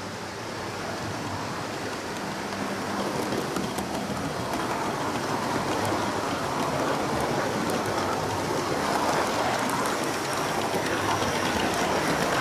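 Model railway train running along the track, heard close up from a camera riding on it: a steady rushing rattle of wheels and motor with many fine clicks over the rail joints, growing louder over the first several seconds.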